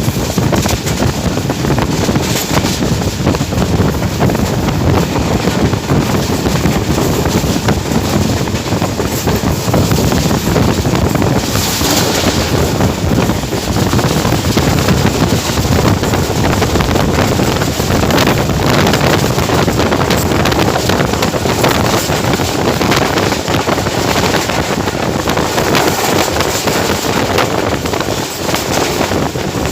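Train running at speed behind a GEU 20 diesel-electric locomotive, heard from on board: a steady rumble of wheels on rails with wind buffeting the microphone, and a brief louder hiss about twelve seconds in.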